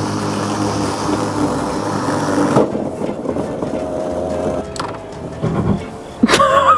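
Electric lawnmower with 3D-printed plastic blades running and cutting grass, then cutting out abruptly about two and a half seconds in and winding down. The motor is stalling because the plastic blades are not strong enough and meet too much resistance. A click follows.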